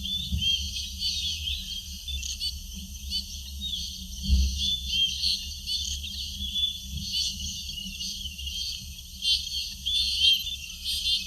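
Many birds chirping and twittering together in a dense, continuous chorus of short high calls, over a low rumble that swells briefly about four seconds in.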